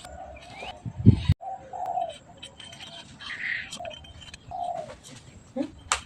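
A bird calling in short, repeated low calls, with a heavy thump about a second in and scattered sharp clicks.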